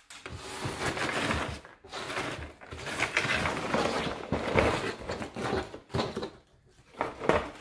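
Brown paper packing filler rustling and crackling as it is scooped by hand back into a cardboard Priority Mail box, then the cardboard box being handled and stood upright, with a few short knocks and scrapes near the end.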